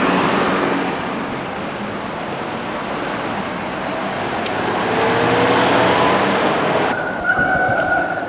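Road traffic noise, with vehicles running close by on the street. It cuts off suddenly about seven seconds in, leaving quieter street sound with a steady high whine.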